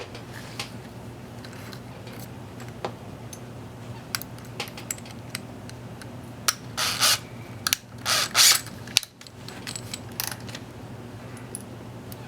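Power drill running in two short bursts, drilling out the set-screw hole in an aluminium RC hub with the first bit, amid scattered clicks of tool handling.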